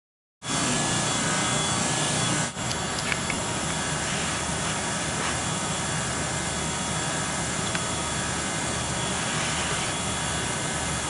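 Electric heat gun running, its fan giving a steady blowing hiss that starts abruptly about half a second in, with a brief dip a couple of seconds later. It is heating the air used to warm the dental tool that presses the wax resin into the cracks.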